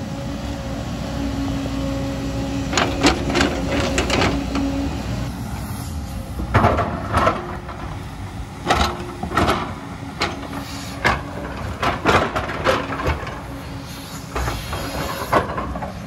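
A JCB tracked excavator's diesel engine running steadily with a whine, while its bucket digs into rock and earth, setting off repeated irregular clatters and knocks of stones.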